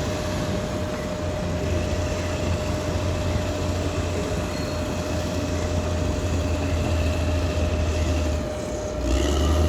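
Caterpillar D6R XL crawler bulldozer working, its diesel engine running with a deep steady rumble and a steady whine while the steel tracks rattle. The sound eases briefly a little after eight seconds, then rises again near the end.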